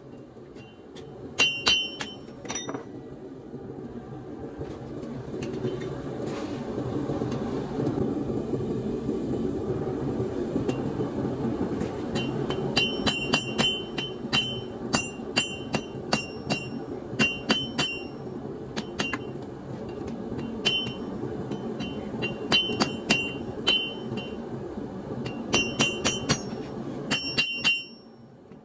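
Hammer blows on hot leaf-spring steel over an anvil, each strike ringing with a bright metallic ping. They come in runs of quick blows, with a long pause early on, over a steady low rushing noise.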